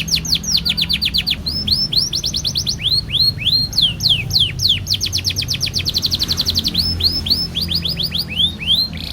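Domestic canary singing a fast, continuous song: runs of rapid whistled notes sliding down in pitch, broken by a quick, even trill about five to six and a half seconds in.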